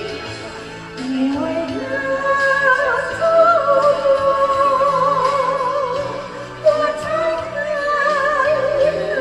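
Music: a song whose melody moves in long, wavering notes with vibrato over a steady accompaniment.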